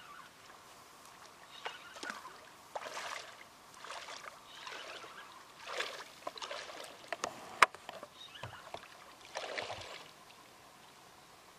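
Legs wading through shallow lake water: an irregular run of splashing, sloshing surges, each about half a second long, as a person steps in to knee depth. A few sharp clicks come about two-thirds of the way through; the loudest of them is the loudest moment.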